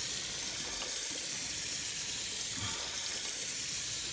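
Tap water running steadily from a kitchen faucet and splashing onto the metal lid of a pressure cooker sitting in a stainless steel sink, cooling the cooker down after cooking.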